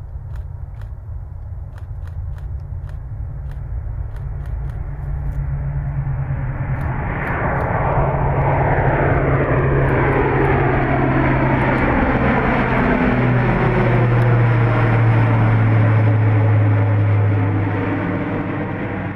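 Airbus A400M Atlas's four turboprop engines at take-off power, with a deep, steady propeller drone. The sound grows louder over the first several seconds as the aircraft comes closer, then a whine slides down in pitch as it passes overhead.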